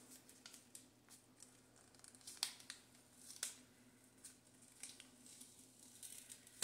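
Faint handling of a wrapped package being opened: soft crinkling with a few light clicks and taps, the sharpest about two and a half and three and a half seconds in.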